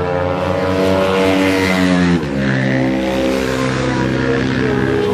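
Racing motorcycle engines running on a circuit, more than one bike at once. The engine note drops sharply about two seconds in, then holds steady.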